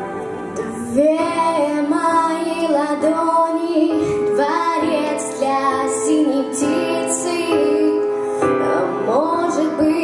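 A girl singing into a microphone over backing music, her voice coming in about a second in.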